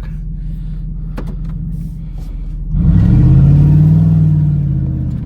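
Dodge Ram pickup's Hemi V8 running at low revs, then accelerating about three seconds in, its pitch climbing and holding loud for a couple of seconds before easing off near the end.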